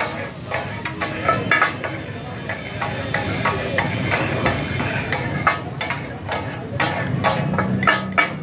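Two steel spatula blades clattering and ringing against a large iron griddle (tawa) as katakat, chopped mutton offal, is chopped and tossed, over the sizzle of the frying meat. The strikes come in uneven clusters and grow quicker near the end.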